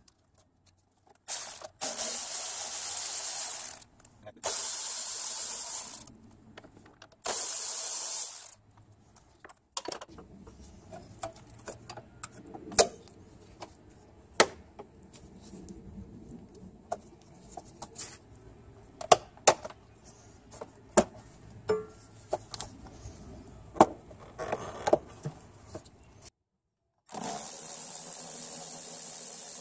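Milwaukee cordless electric ratchet running in short bursts of one to three seconds as it spins a socket on engine-bay fasteners: three bursts in the first nine seconds and one more near the end. In between, scattered metal clicks and knocks of hands handling tools and parts.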